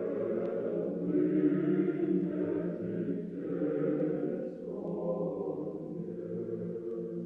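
Choir chanting in slow, sustained chords, in the manner of Orthodox church singing.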